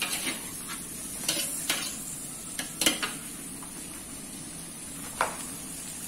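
Diced tempe sizzling in a hot wok during a stir-fry, with a steady hiss throughout. A spatula scrapes and clinks against the pan every second or so, the loudest strike about three seconds in.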